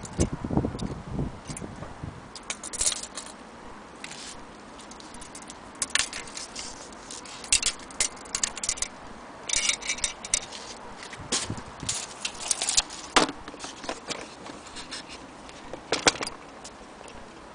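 Handling noise from measuring a mantel clock with a steel tape measure: irregular clicks, scrapes and rattles as the metal blade is moved and knocks against the clock case, with a few short clattering spells.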